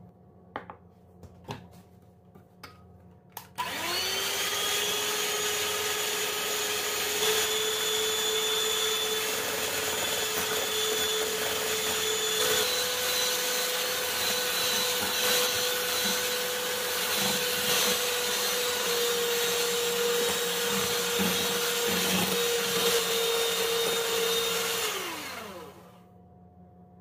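A few light knocks, then an Emjoi electric hand mixer starts about three and a half seconds in and runs steadily, its motor whine stepping up in pitch twice as the beaters whip egg whites and sugar into a firm, shiny meringue. Near the end it is switched off and winds down with a falling whine.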